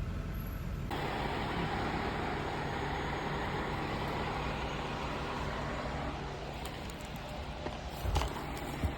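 A large engine running steadily, with two short knocks near the end.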